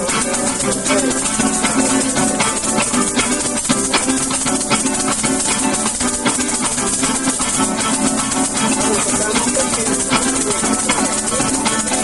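Instrumental Venezuelan folk music: plucked strings, a bandola and a cuatro, over maracas shaking a steady fast rhythm.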